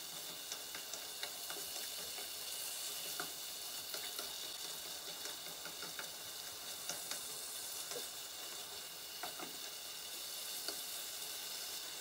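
Beetroot and tomato fry-up sizzling in a frying pan as it stews, stirred with a wooden spatula that gives small, scattered scrapes and clicks against the pan.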